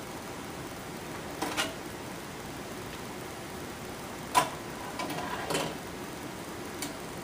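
Aquarium air stone bubbling: a steady hiss of rising bubbles, broken by a few short sharp clicks, the loudest about four seconds in and a quick cluster just after.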